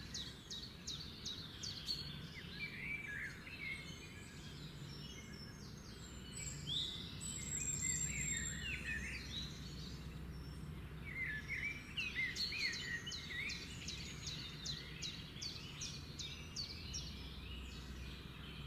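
Pet birds chirping and twittering. There are runs of rapid high chirps, several a second, at the start and again from about eleven seconds in, with looser twittering calls between.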